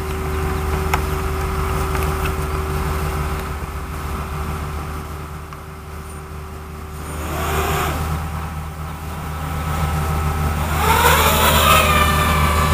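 FPV racing quadcopter's motors spinning up in a rising whine, once briefly about seven seconds in and again louder about eleven seconds in as it lifts off its pad, over a steady low hum.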